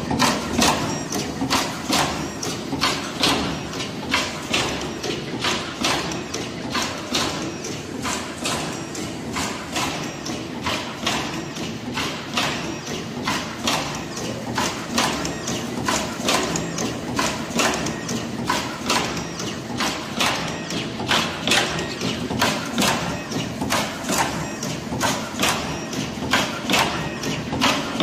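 Automatic wire cutting, stripping, twisting, soldering and crimping machine running through its cycles: a steady run of sharp mechanical clacks, about two to three a second in a slightly uneven rhythm, over a constant machine hum.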